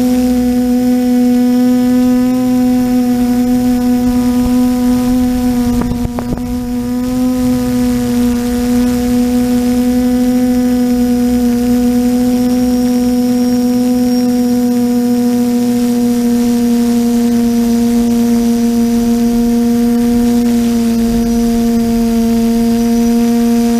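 TBS Discovery quadcopter's brushless motors and propellers whining steadily at one pitch in flight, recorded from the onboard camera. The drone sound dips briefly about six seconds in, then returns to the same pitch.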